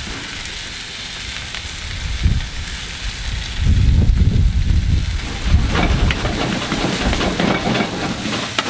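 Ground beef and thin-sliced onions sizzling on a hot flat-top griddle, a steady frying hiss, with stretches of low rumbling from about three and a half seconds in as the spatula works the burger.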